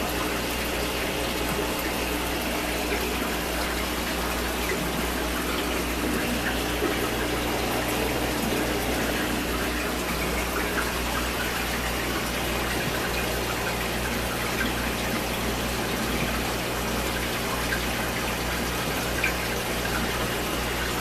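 Steady bubbling and gushing of aquarium water from air stones, over a low steady hum from the tank's equipment.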